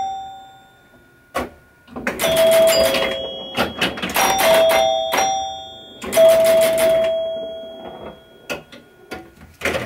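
Chime box of a 1973 Williams Travel Time pinball machine, fitted with Gottlieb chime bars, ringing as the game scores. The chimes are struck several times, and the last strike about six seconds in rings on and fades for about two seconds, among sharp mechanical clicks from the game.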